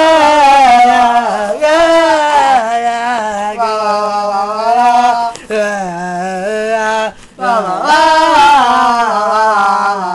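A single unaccompanied voice singing a Christmas tune to "la la la", in long held notes that slide mostly downward, with a short break about seven seconds in.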